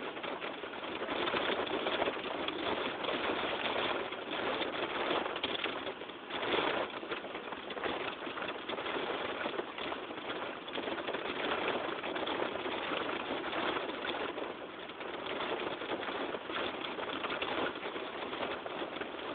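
Heavy rain and wind beating on a car, heard from inside: a dense, rattling patter that swells and eases with the gusts.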